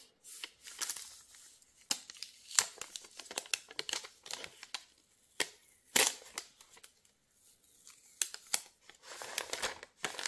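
Thin plastic protective wrap being peeled off a new smartphone, crinkling and crackling in irregular snaps, the sharpest about two and a half and six seconds in.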